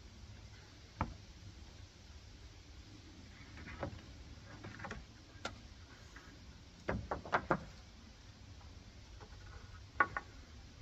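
Irregular wooden knocks and clunks from lumber being handled and set against a timber roof frame: single knocks spread through, a quick run of several about seven seconds in, and a sharp double knock near the end.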